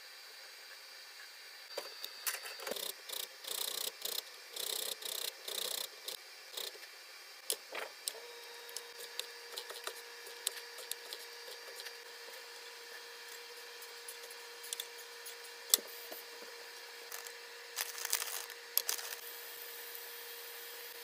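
Hand food prep in a kitchen: a run of quick, rhythmic scraping strokes, like a knife or grater working through fruit, then scattered clicks and taps of utensils and a short burst of scraping near the end. A faint steady hum runs underneath.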